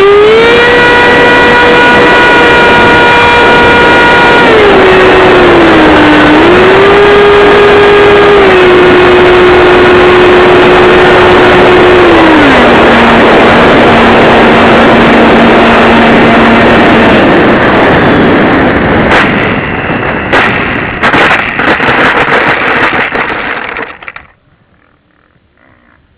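70mm electric ducted fan of an RC F-4 Phantom jet, heard loud through the onboard keychain camera's mic. Its whine steps down in pitch several times as the throttle is pulled back, then stops. A rushing noise with a few sharp knocks follows, and the sound cuts off suddenly near the end.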